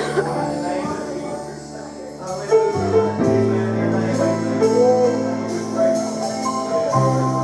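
Church worship music: sustained chords over a held bass, with light percussion ticks and a voice.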